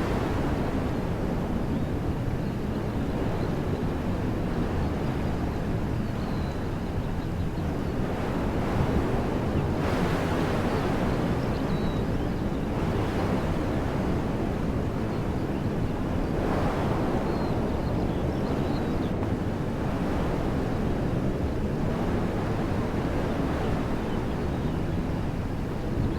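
Wind blowing through the trees of a woodland, a steady rushing hiss that swells in gusts about ten seconds in and again a few seconds later, with low rumble of wind on the microphone.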